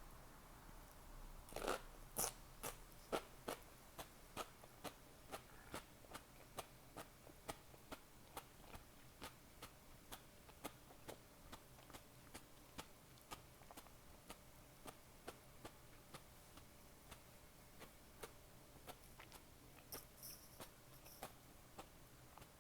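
Close-miked chewing: a person eating with steady, rhythmic mouth clicks about two and a half a second, loudest in the first few bites.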